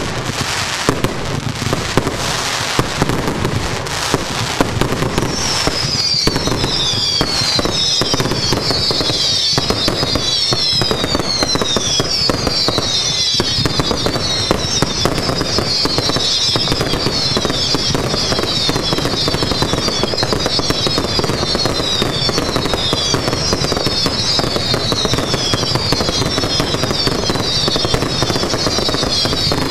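Fireworks finale barrage: a dense, continuous run of bangs and crackling bursts. From about five seconds in, a thick layer of many overlapping whistles, each falling in pitch, sounds over the bangs.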